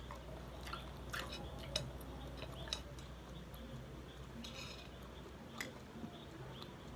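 Quiet chewing and eating sounds close to the microphone, with a few small scattered clicks.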